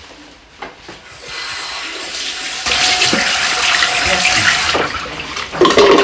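Water running from a tap into a sink, the flow building from about a second in, running strongest for a couple of seconds and then easing off.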